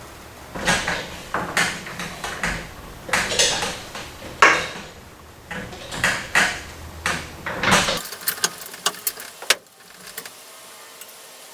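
Sheet metal flashing being slid and scraped into place against metal siding: a run of irregular scraping, rattling swells, then a few light clicks and one sharper snap near the end.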